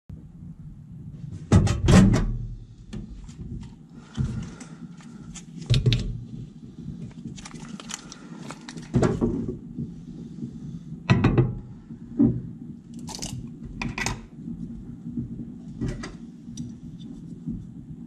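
Irregular thunks, knocks and light clinks of handling in a microwave oven: a glass bowl being set on the glass turntable and a jar and spoon being handled beside it. The loudest thumps come about two seconds in and again around nine and eleven seconds.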